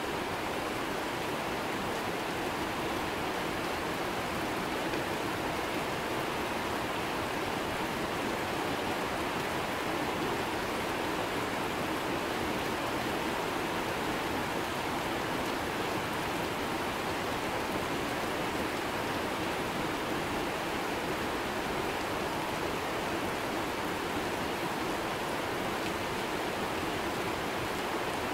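Heavy tropical rain pouring steadily onto dense rainforest foliage and banana leaves, a constant even hiss.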